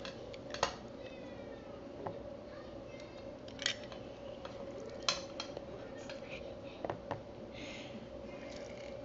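A few separate clinks and knocks of kitchen utensils against a plastic mixing bowl while ceviche is being prepared, over a steady hum.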